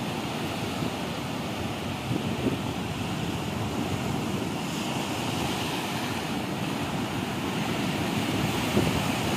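Sea surf breaking and washing up a sandy beach, a steady rushing noise with wind rumbling on the microphone, a little louder near the end.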